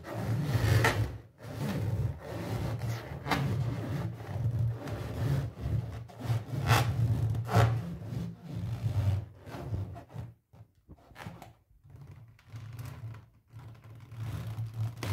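Latex balloon rubbing and squeaking under a boot sole as it is pressed and squashed against a tile floor, with a few sharper squeaks in the first eight seconds. The sound grows quieter after about ten seconds.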